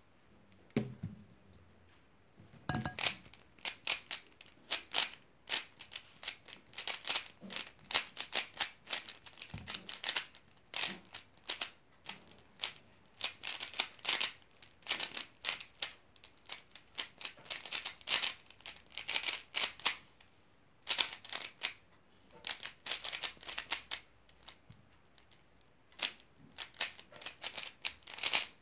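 Plastic MoYu WeiLong 3x3 speedcube being turned fast in a timed solve: a rapid run of clicks and clacks from the layer turns. It starts about three seconds in and has two short pauses near the end.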